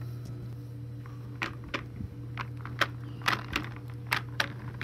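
Hard plastic toys clicking and tapping as they are handled and set down on wooden boards: about a dozen irregular sharp clicks, over a steady low hum.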